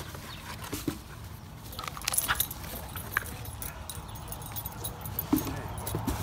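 Cardboard parcel boxes being handled and opened, with crackling and clicking, busiest about two seconds in. A dog gives a short vocal sound about five seconds in.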